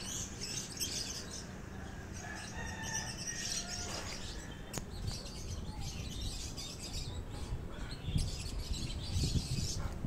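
A small bird chirping in short calls every so often, held in a person's hands after its caught foot was freed.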